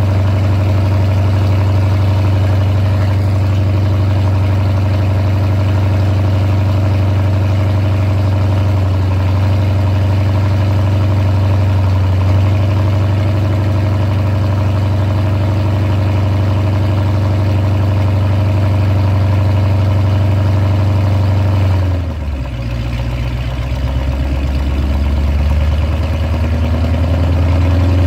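Chrysler 300 SRT's HEMI V8 idling from a cold start, a steady low exhaust note through the dual tips. About 22 seconds in the note dips, then slowly climbs again.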